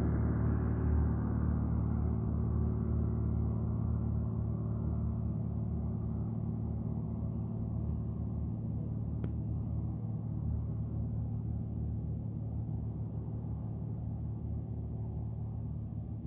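Towplane's propeller engine droning steadily at climb power while towing a glider aloft, slowly fading as it draws away.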